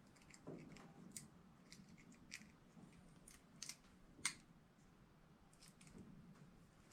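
Faint, scattered small clicks and ticks of hands handling small hardware, irregular, with one sharper click a little past four seconds.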